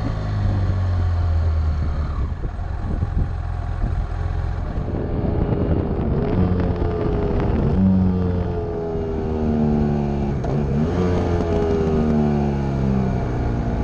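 BMW F800 GS parallel-twin engine and exhaust under way, its note climbing and dropping several times as the bike accelerates and changes gear, with wind noise on the microphone.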